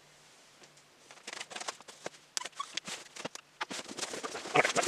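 Cardboard shipping box being opened by hand, its packing tape and flaps crackling, rustling and scraping in a quick run of short noises after a quiet first second, loudest near the end.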